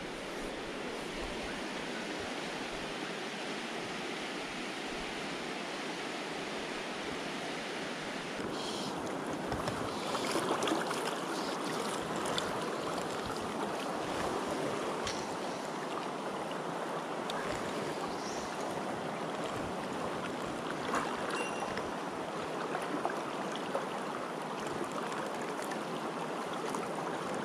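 River rushing steadily, running high and fast after heavy rain upstream; the rush grows brighter and a little louder about eight seconds in.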